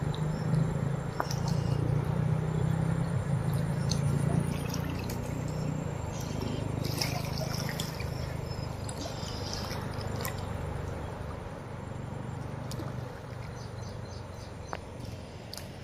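Steady rush of the Mahanadi river in flood, with a low rumble that is strongest for the first several seconds and then fades. Faint high chirps come through in the middle.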